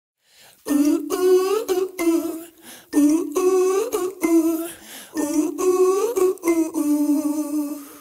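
Music: a solo voice humming a wordless melody in three long phrases, each ending in a glide.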